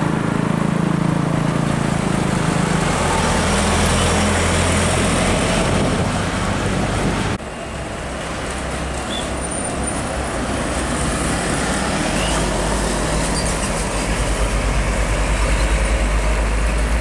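Heavy diesel box trucks driving past on a road, engines running with tyre and road noise. The sound changes abruptly about seven seconds in, and near the end a passing truck's engine throbs low and close.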